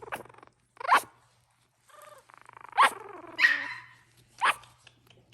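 Pomeranian barking: about five sharp, high yips a second or so apart, each dropping in pitch.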